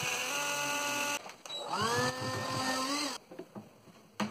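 Cordless drill drilling pilot holes into a wooden lid frame, in two short runs. The first whine stops about a second in. The second rises in pitch as the drill spins up and cuts off about three seconds in, and a small click follows near the end.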